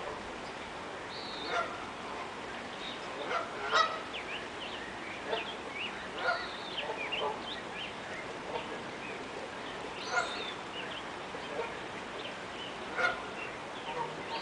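Canada geese honking: short, repeated calls at irregular intervals, some loud and close. The steady rush of river water runs underneath.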